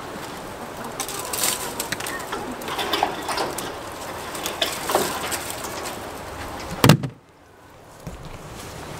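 Leafy branches being cut and snapped off a bush with red-handled pruning shears: a run of irregular cracks, clicks and rustling, with one loud sharp knock about seven seconds in.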